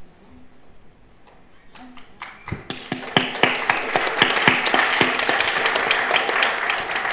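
Audience applause. A few scattered claps, then a full round of clapping from about two and a half seconds in.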